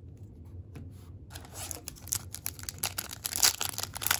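A 2020 Topps Pro Debut trading-card pack wrapper being torn open and crinkled. A dense, crisp rustling starts about a second in and grows louder, after a few soft clicks.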